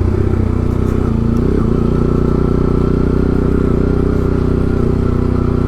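Motorcycle engine running steadily at an even pitch, with a brief slight rise and fall in engine speed about a second and a half in.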